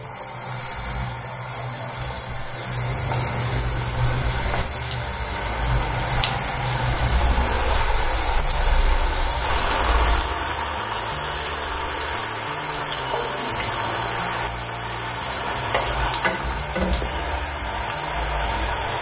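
Wontons deep-frying in a pot of oil at medium heat: a steady sizzle with fine crackling.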